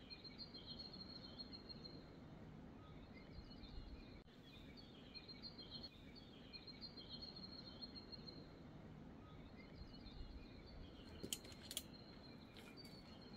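Faint birdsong: thin, high chirps and short trills repeating over a quiet, steady outdoor background. Two sharp clicks come near the end.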